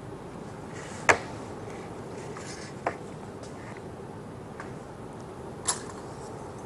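Three short, sharp knocks of kitchen items being handled and set down on a counter, the loudest about a second in, the others near the middle and near the end, over a steady low room hiss.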